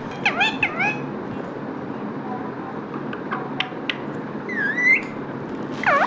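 Rose-ringed parakeet calling: three quick short calls that sweep down and up in pitch, a few soft clicks, then a longer call and a sharp falling call near the end, over a steady background hiss.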